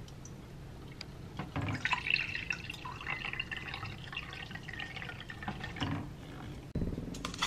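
Water poured from a kettle into a ceramic mug, a steady pouring splash lasting about four seconds. A low thump comes near the end.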